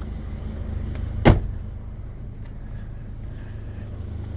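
A single sharp knock about a second in, over a steady low hum.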